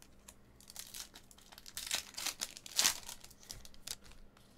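Crinkling and tearing of a baseball card pack's wrapper as it is ripped open, a run of crackles that peaks about three seconds in.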